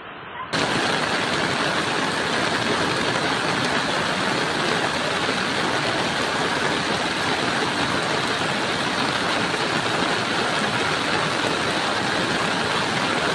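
Flash-flood torrent rushing over a road: a loud, steady rush of water that cuts in about half a second in.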